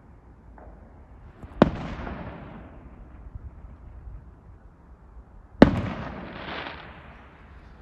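Aerial fireworks bursting in the night sky: two sharp bangs about four seconds apart, each trailing off over a second or so.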